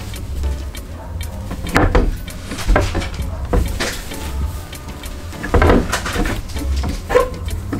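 Handling noise as a kitchen towel is hung on a metal towel bar clipped over a wooden cupboard door: cloth rustling with several light knocks of the bar and door, over a low steady hum.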